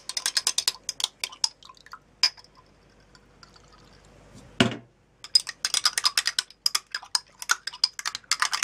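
Metal teaspoon clinking rapidly against the sides of a small glass jar while egg yolk and water are stirred into an emulsion for egg tempera. The clinking thins out and pauses about two seconds in, a single louder knock comes at about four and a half seconds, and then the fast clinking resumes.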